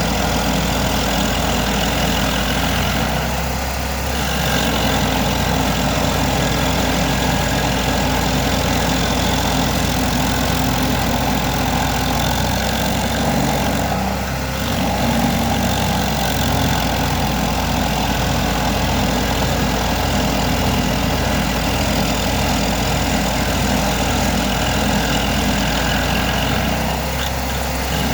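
Vermeer SC382 stump grinder's 37 hp engine running steadily with an even low pulsing, dipping briefly in loudness three times.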